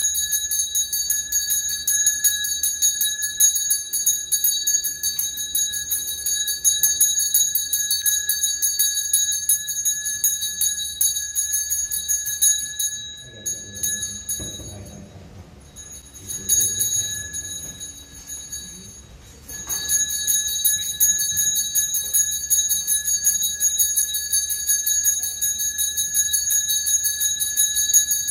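A small bell shaken rapidly and continuously, giving a steady, bright, high ringing. It stops for a few seconds about halfway through, rings briefly, and then carries on.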